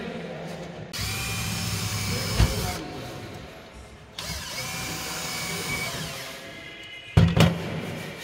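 Power drill running in two bursts of about two seconds each, the second spinning up with a rising whine. A sharp knock comes during the first burst, and two loud knocks come near the end.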